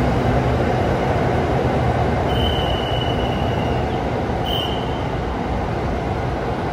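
Electric commuter train pulling out of an underground station platform and running away down the line, its steady running noise slowly easing. Two short high-pitched squeals come about halfway through.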